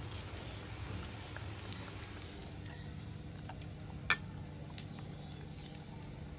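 Besan-battered jackfruit pakoras deep-frying in hot oil in a wok: a steady sizzle with scattered crackles and pops, one louder pop about four seconds in.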